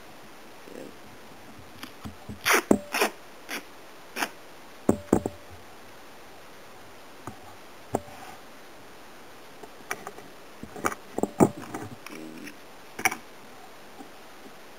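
Duct tape being handled and smoothed down by hand on a cutting mat: scattered sharp crackles and taps, coming in bunches about two seconds in, around five seconds, and again from about ten to thirteen seconds.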